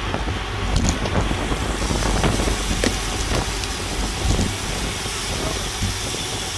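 Wind buffeting an action camera's microphone on a racing bike at speed, a steady low rumble mixed with tyre and road noise, with occasional knocks and clicks as the bike rides over cracks in the pavement.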